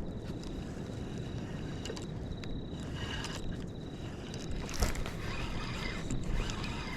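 Low rumbling noise on a fishing kayak, with scattered light clicks and a louder knock about five seconds in.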